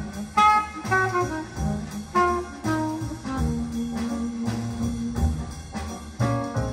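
Jazz recording played through Talon Audio Firebird loudspeakers: a horn melody of quick notes over a pulsing bass line, with one long held note in the middle.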